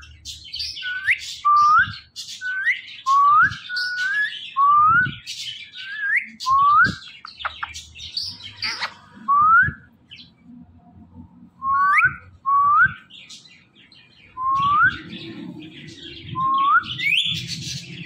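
Indian ringneck parakeet giving a series of short rising whistled calls, about one or two a second, with a brief pause midway.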